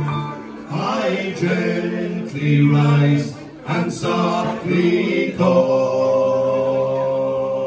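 Several men singing together in harmony, the voices well to the fore. About five and a half seconds in they settle on one long held chord.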